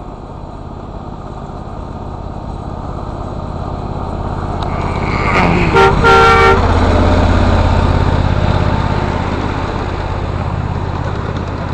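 Ridable-scale model diesel locomotive and its train of riding cars passing close by, with a low rumble that builds as it approaches and slowly fades as the cars roll past. As the locomotive comes level, its horn sounds twice, a short toot and then a longer one.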